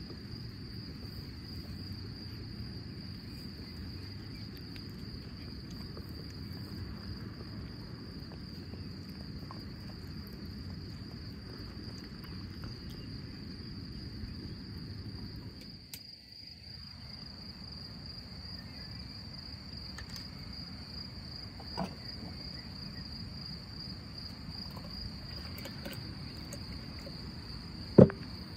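Outdoor insect chorus, a steady high-pitched chirring that runs without a break, over a low background hum. A sharp knock stands out near the end.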